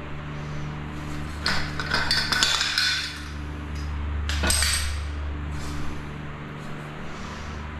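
Metal clinks and clatter from handling the parts of a barrel-type silicone gun that has come apart: a run of rattles and knocks early on, then a single sharper knock a little later. A steady low hum runs underneath.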